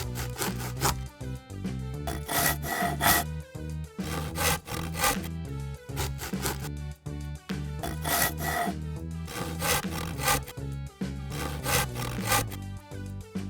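Background music with a stepping bass line, overlaid with repeated short rasping, scraping strokes that come in small clusters every couple of seconds.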